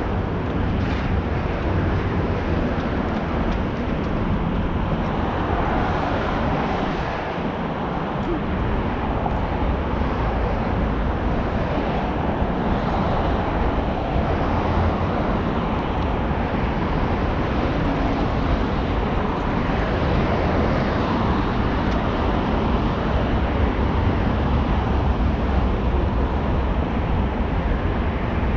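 Steady city street noise with traffic going by.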